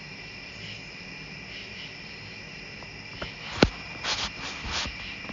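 Steady insect chorus in a summer evening woods, high continuous trilling. About three and a half seconds in comes a sharp click, followed by a few short scuffing bursts.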